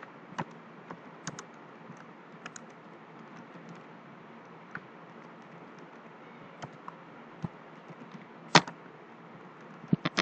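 Computer keyboard being typed on, in scattered, irregular keystrokes over a faint steady hiss. One louder key press comes about eight and a half seconds in, and a quick cluster of keystrokes comes near the end.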